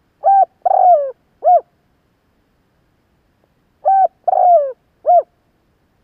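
Spotted dove cooing: a three-note phrase of a short coo, a longer coo that falls at its end, and a short coo. The phrase is given twice, about three and a half seconds apart.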